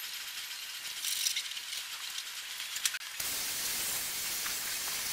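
A thin hiss with a few faint clicks, then about three seconds in a garden hose spray nozzle's wide jet of water hitting a car's side panels and window, as a steady, louder rush of spray.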